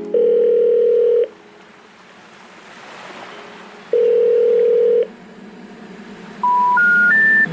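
Telephone call tones: a steady ringing tone sounds twice, each about a second long, then near the end three short beeps step up in pitch, the special information tone that comes before a 'number not reachable' message.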